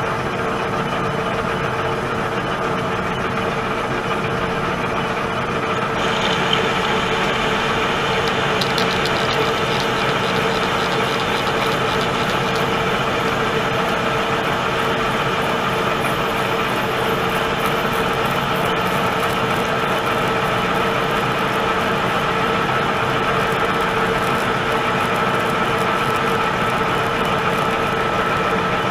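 Pratt & Whitney Model B metal lathe running steadily at 190 RPM under power cross feed, its drive giving a steady hum, while taking a facing cut in stainless steel. A higher, scratchy hiss joins about six seconds in.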